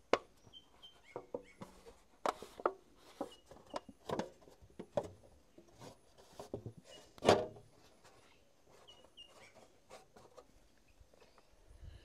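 Thin metal sheet being pressed and folded by hand around a wooden post, giving irregular sharp knocks and crackles, the loudest about seven seconds in, then quieter. A few short high chirps sound in the background.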